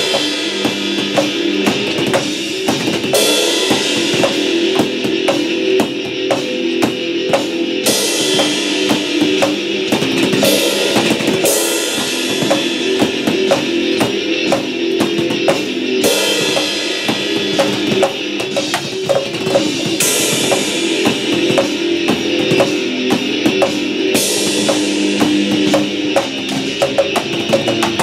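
Practice drum kit played in a steady rock beat, with kick and snare hits and a crash cymbal about every four seconds, along with a rock recording whose sustained guitar and bass are heard underneath.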